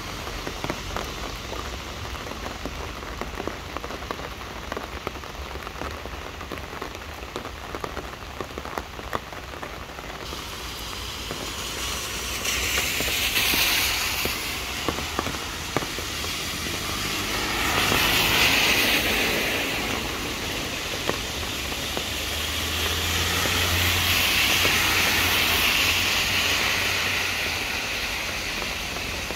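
Rain falling on the leaves and ground under trees, a steady hiss with the patter of separate drops. In the second half the hiss swells up and fades three times.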